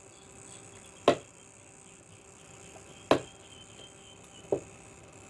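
A cooking utensil knocking against a wok three times, about two seconds apart, while minced pork is worked in the simmering coconut-milk broth.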